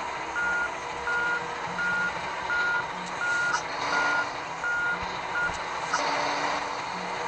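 Truck's reversing alarm beeping steadily, a single tone repeating about one and a half times a second, over the running diesel engine; the beeping stops about five and a half seconds in.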